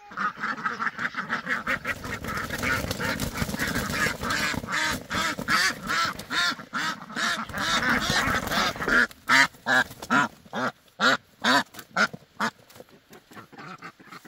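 White domestic ducks quacking loudly as they are caught and handled, many calls overlapping at once. From about nine seconds in the calls come singly, about two quacks a second with short gaps.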